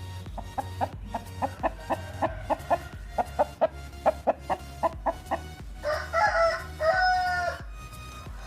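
Chickens clucking in a steady run of short calls, about three a second, with a longer two-part call about six seconds in.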